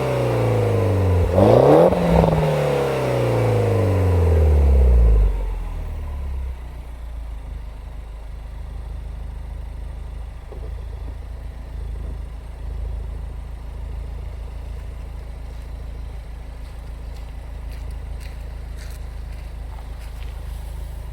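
2007 Mini Cooper S R56's turbocharged 1.6-litre four-cylinder engine on its stock exhaust, warm: the revs drop from one blip and it is revved again sharply about a second in. The revs then fall away slowly over about four seconds and it settles into a steady idle.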